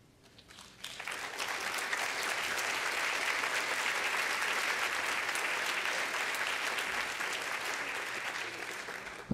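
Audience applauding, building up over the first second and tapering off near the end, with a single thump right at the end.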